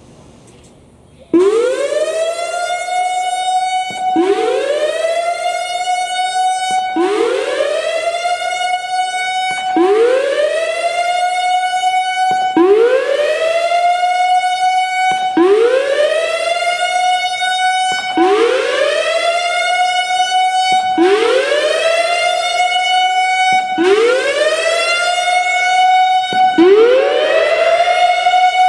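Analog Whelen WPS-3000 electronic storm siren sounding a repeating signal. It starts about a second in, and each cycle is a quick rising sweep that holds at its top pitch, then cuts off and starts over, roughly every three seconds.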